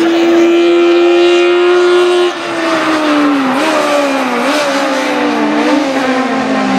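Race-tuned Honda CRX with a naturally aspirated S2000 F20 four-cylinder engine, held at a steady high scream at high revs. About two seconds in the note cuts briefly, then falls in uneven steps with short rises, the pattern of the driver lifting and working down through the sequential gearbox for a corner.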